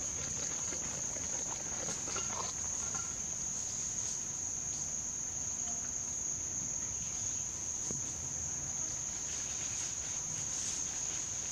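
Steady, unbroken high-pitched drone of insects in the forest.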